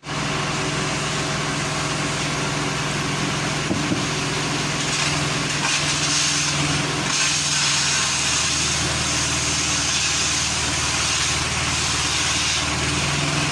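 A heavy engine running steadily at a constant speed. Its low note shifts lower about seven seconds in, with more hiss on top.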